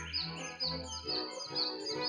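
Background instrumental music with a low, pulsing bass line, with high bird chirps repeating about twice a second over it.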